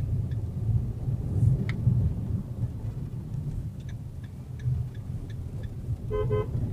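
Steady low rumble of engine and road noise inside the cabin of a Maruti Suzuki Vitara Brezza rolling slowly in heavy traffic, with a few faint clicks. Near the end a vehicle horn sounds two short beeps.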